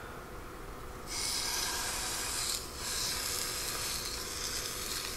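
Seasoned beef chuck roast set into hot avocado oil in a deep skillet, sizzling steadily from about a second in as it starts to sear, with a short lull partway through.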